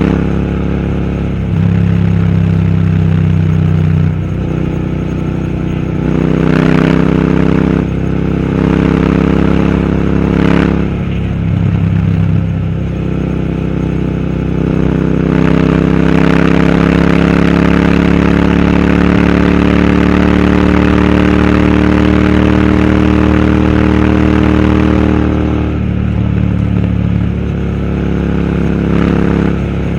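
Royal Enfield Interceptor 650's 648 cc parallel-twin engine and exhaust under way. The engine note rises and falls with throttle and gear changes through the first half, with short breaks near 7 and 10 seconds, then climbs slowly and steadily for about ten seconds before easing off near the end.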